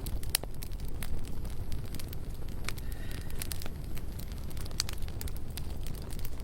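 Campfire crackling: sharp pops and snaps at irregular intervals over a steady low rumble.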